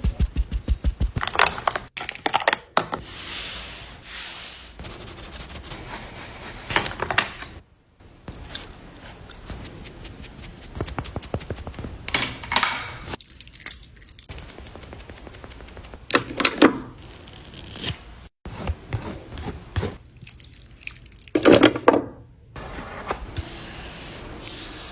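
Close-up handling of skincare products and their packaging: a run of quick clicks at the start, then scattered taps, clicks and short scraping or rubbing sweeps.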